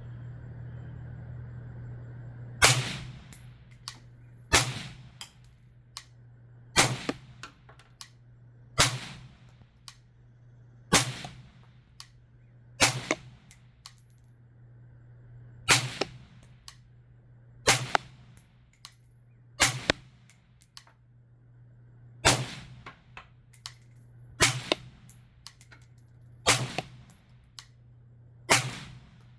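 Suppressed 5.56 rifle (B&T VERS36 titanium suppressor) firing slow aimed single shots, about thirteen, roughly one every two seconds, each with a fainter second crack just after it. A steady low hum runs underneath.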